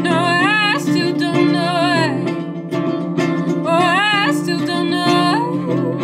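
A woman singing with vibrato over her own acoustic guitar accompaniment: two sung phrases with a short guitar-only gap between them.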